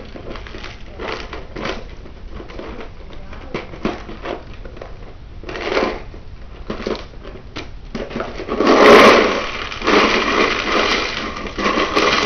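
Handling noise from a plastic LEGO Bionicle canister, with soft rustles and clicks. About eight and a half seconds in, it turns into a loud rattling clatter as the plastic pieces are poured out of the canister onto a glass tabletop.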